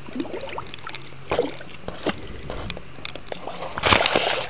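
Camera microphone handling noise: the camera rubbing and bumping against a jacket, with irregular knocks and scrapes and a louder burst of noise near the end.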